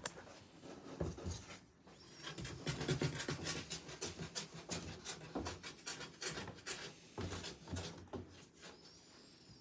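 Cats scratching and rustling against a cardboard box: a run of dry scratches and light taps, busiest in the middle.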